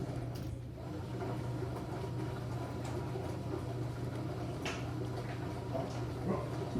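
Enxuta Júnior 2 kg washing machine's motor running with a steady low hum, with a couple of light knocks near the end.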